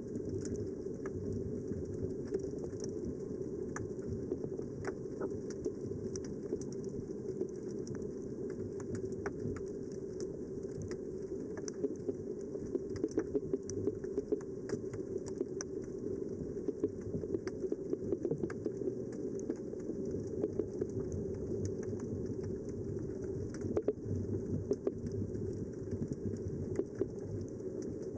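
Underwater ambience picked up by a submerged camera: a steady, muffled water rumble with scattered light clicks and crackles, a little busier in the second half.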